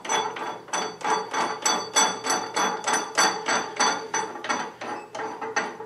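Steel cross-feed screw of a South Bend 13-inch lathe being turned into its cross-slide nut with a hand tool: an even run of metallic clicks, about four or five a second, each with a slight ring.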